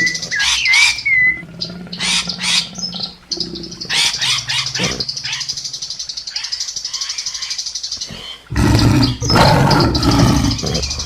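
A run of animal calls: short whistled bird chirps, then a fast, steady, high-pitched trill, then a loud rough call that starts suddenly about eight and a half seconds in.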